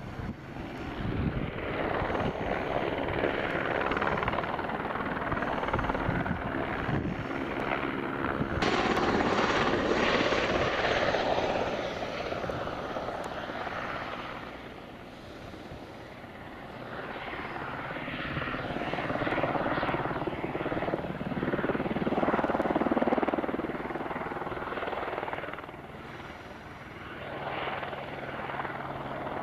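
Light single-engine helicopter flying low, its rotor and engine noise swelling and fading as it passes back and forth, with an abrupt jump in the sound about a third of the way in.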